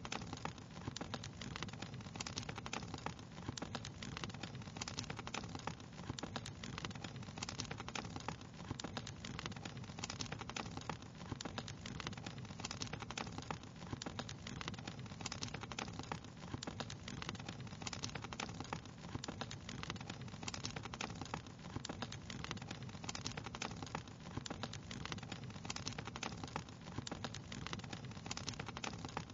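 Wood fire crackling, with many small irregular pops over a steady low rush of flame.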